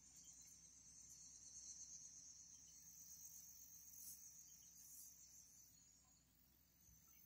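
Near silence with a faint, steady high-pitched trill of crickets in the grass.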